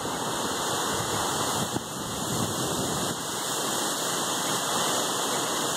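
Strong storm wind rushing steadily and buffeting the phone's microphone.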